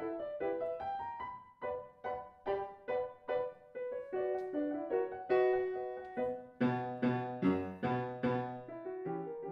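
Background music: solo piano playing a slow melody of separate notes that fade away, with fuller low chords from about two-thirds of the way in.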